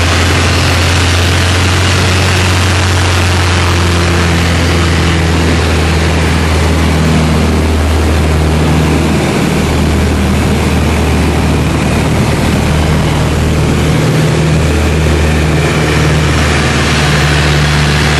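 Single-engine light aircraft's piston engine and propeller running steadily in flight, a loud low drone heard from inside the cockpit with rushing airflow over it.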